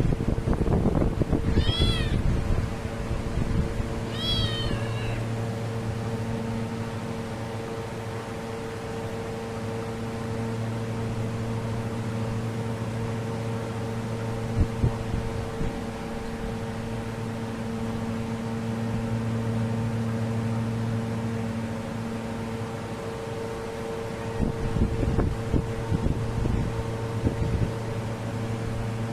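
A cat gives two short, high-pitched meows about two seconds apart, over a steady mechanical hum. Low rumbling noise comes at the start and again after about 24 seconds.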